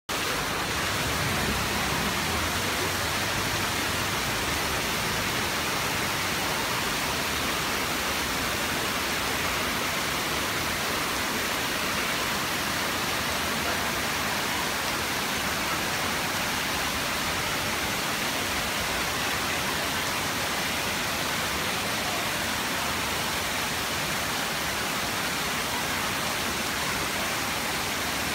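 Heavy rain falling steadily: a dense, even hiss that does not let up.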